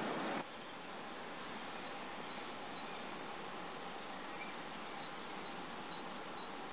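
Quiet woodland ambience: a steady faint hiss with a few short, high bird chirps scattered through it. A louder hiss cuts off suddenly about half a second in.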